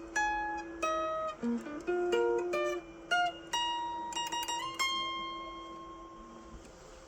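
Guitar played note by note, a picked melody over a ringing lower string. About three and a half seconds in it ends on a final note that is left to ring and fade out.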